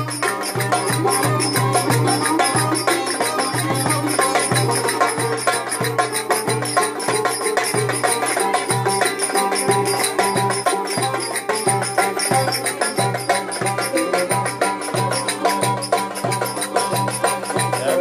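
Live Turkish folk dance tune (oyun havası) played on violin and long-necked bağlama over a steady low beat of about two to three pulses a second.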